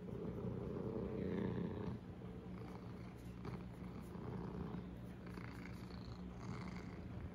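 Orange domestic cat purring steadily while having its head scratched, a little louder in the first couple of seconds.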